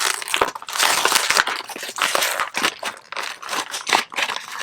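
A taped-shut toy package being worked open by hand: plastic packaging crinkling and crackling, with repeated sharp snaps as it is pulled and torn.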